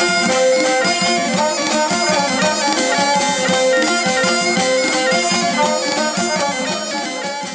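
Instrumental background music: quick, densely repeated notes over a held tone, getting quieter near the end.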